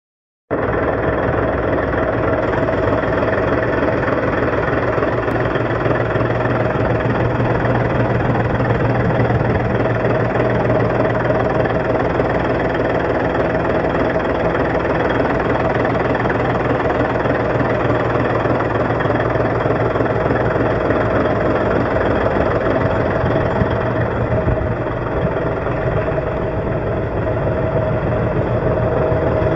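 Heavy-truck diesel engine of a 1999 Freightliner FLD120 dump truck idling steadily, heard up close with the hood open.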